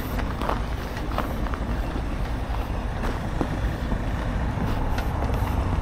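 Heavy diesel truck engine running steadily with a low drone, growing a little louder near the end, with a few faint clicks.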